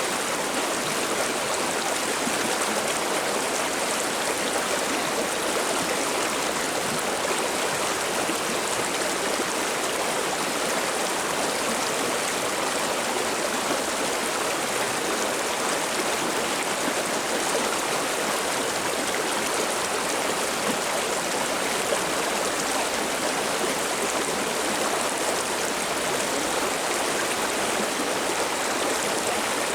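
River water babbling and splashing, a steady even rush with no breaks.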